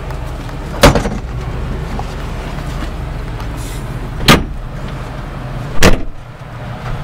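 John Deere tractor engine running steadily, heard from inside the cab, broken three times by sharp, loud knocks, about a second in, past the middle and near the end.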